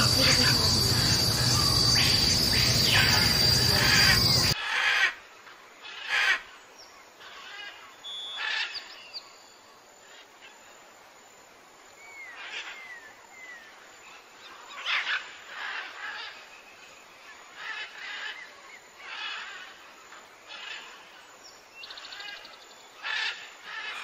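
Rainforest ambience: a loud, dense insect chorus with a steady high whine and bird calls cuts off abruptly about four seconds in. A much quieter forest follows, with scattered bird calls and chirps.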